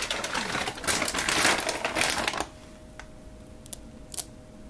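A plastic bag of chocolate chips crinkling as it is handled, for about the first two and a half seconds. After it stops abruptly, a couple of faint clicks follow.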